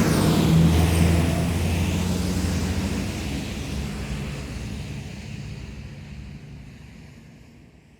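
A road vehicle passes close on a fast main road, its low engine drone and tyre noise loudest about a second in, then fades away steadily into the distance.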